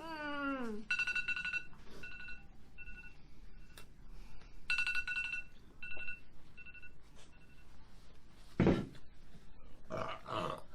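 Phone countdown timer alarm going off: short electronic beeps at a fixed pitch, repeating in groups to signal that time is up. A single dull thump comes near the end.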